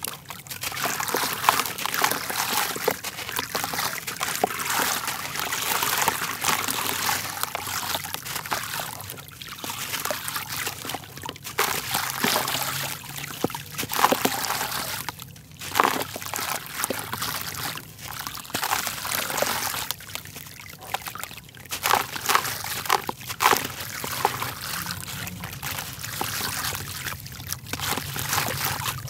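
Grainy red dirt block crumbling in wet hands over a tub of water, with crumbs and wet grit dropping and trickling into the water. It comes as a run of many small crackles and splashes with a few brief pauses.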